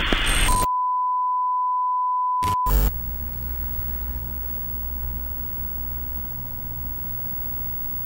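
A burst of TV static, then a steady test-card beep held for about two seconds and broken off by short crackles of static. A low steady hum follows, with the beep faintly audible under it.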